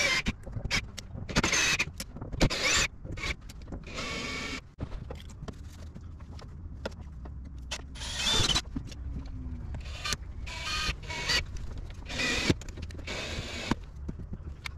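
Cordless drill/driver whirring in short repeated bursts while driving screws into a sheet-metal window screen cover, with sharp clicks and handling knocks between the bursts.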